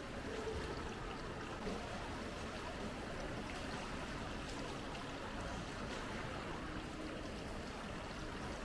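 Indoor swimming pool water splashing and lapping at the pool edge as a swimmer swims front crawl toward the wall: a steady wash of water noise.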